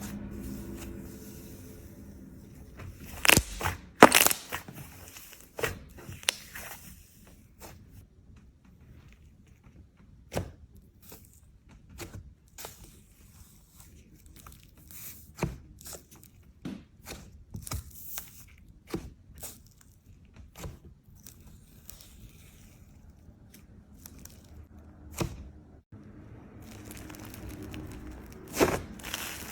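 Slime being handled, giving off irregular sharp clicks and crackling pops, a few at a time, with the loudest cluster about three to four seconds in and another near the end.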